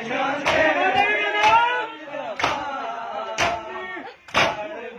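A crowd of men chanting a noha in chorus while beating their chests in unison during matam, one sharp slap about once a second. The chanting is strongest in the first two seconds; the slaps carry on to the end.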